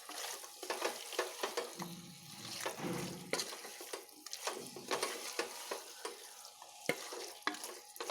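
Ladle stirring chicken pieces through a wet masala in a pressure-cooker pot, with irregular scrapes and clicks against the pot over the sizzle of frying.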